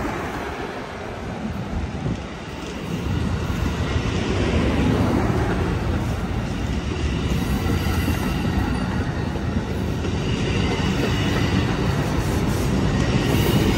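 Amtrak California bilevel passenger cars rolling past close by as the train pulls out of the station, their steel wheels running on the rails in a continuous rumble that grows louder about three seconds in.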